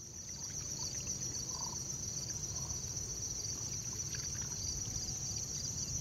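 Steady, high-pitched chorus of insects trilling, with a fine pulsing texture, over a low rumble of outdoor background noise and a few faint chirps. It fades in right at the start.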